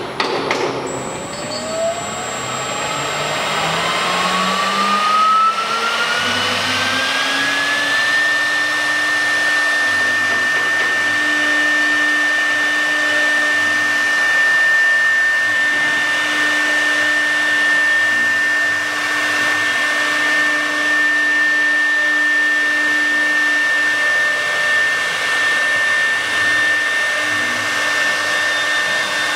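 CNC wood router's spindle motor spinning up: a whine rises steadily in pitch over about eight seconds, then holds at full speed as a steady high whine over a constant rushing hum.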